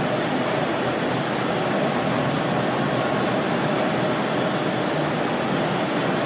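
Patty battering and breading line running: conveyor and machine motors giving a steady, even mechanical noise with no distinct rhythm.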